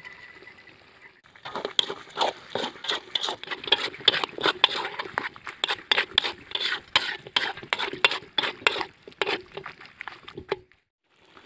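Spatula stirring chicken intestines in a metal wok, a fast irregular run of scrapes and knocks against the pan. It starts a little over a second in and stops shortly before the end. This is the final stir of the finished dish after chopped coriander goes in.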